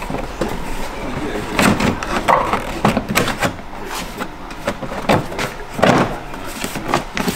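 Garage workshop clatter: a run of irregular knocks and clicks of work on a car, with indistinct voices in the background.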